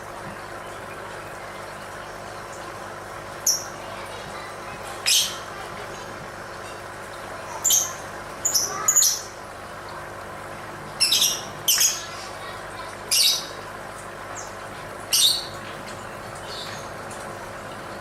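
Lovebird giving short, high-pitched squawking calls at irregular intervals, about eleven in all, some in quick runs of two or three.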